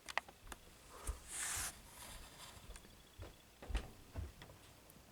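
Handling noise: a scatter of light clicks and knocks, with a brief hiss about a second and a half in and a couple of dull thumps near the end.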